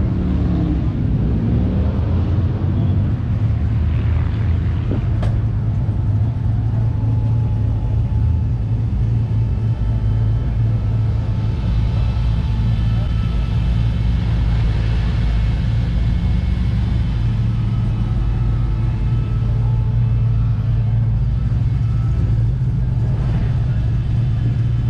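A car engine running steadily at idle, a low even rumble, with people talking in the background.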